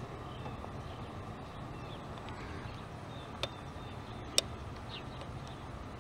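Steady background hiss and low hum with two short sharp clicks about a second apart, the second louder, a little past the middle.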